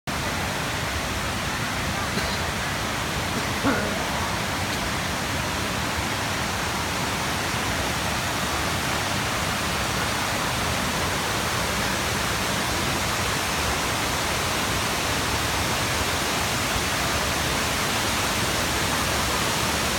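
Steady, loud rush of the Kuang Si waterfall's falling water, with one brief sharper sound just under four seconds in.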